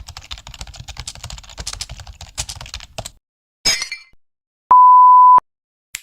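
A string of short sound effects: about three seconds of rapid clicking like fast typing on a keyboard, a brief noisy burst, then a loud steady beep tone lasting under a second, the loudest sound, and a single click near the end.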